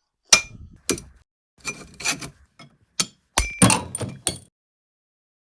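Sharp metal knocks and clinks, about eight hits with a brief ring each, over some four seconds, as parts are worked free during a steering rack strip-down.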